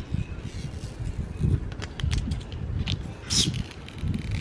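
Handling noise from craft work on a photo gift: a low rumble with scattered light clicks, and a short rustle about three seconds in.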